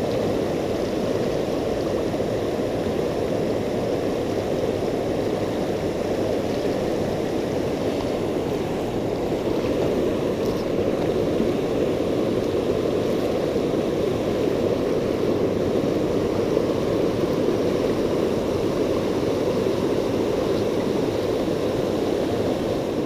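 River water rushing over a weir and through a boulder-strewn run, a steady, unbroken rushing.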